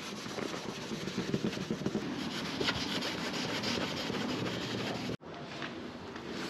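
A cloth rubbing scratch remover over a motorhome's scratched sheet-metal body panel to polish out the marks, in steady back-and-forth strokes. The sound breaks off for an instant about five seconds in.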